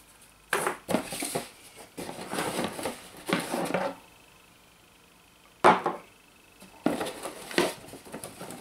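Cardboard rustling and scraping as glass shot glasses are pulled out of their box packing, with one sharp glassy knock a little past halfway as a glass is set down on the table.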